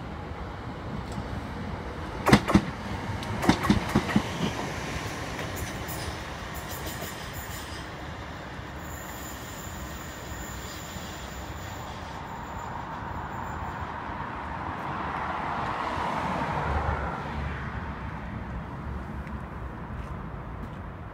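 A train passing on the line, its wheels clattering over the rail joints in a quick run of loud clicks about two to four seconds in, then a steady rumble that swells again briefly later on.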